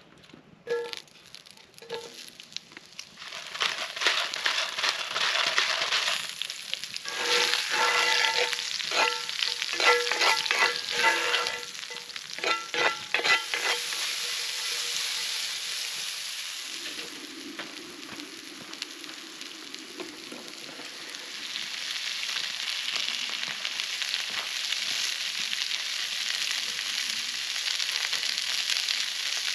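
Sliced vegetables sizzling in a cast iron skillet over a campfire, with a run of sharp ringing clinks of a metal utensil against the pan a few seconds in, then a steady sizzle.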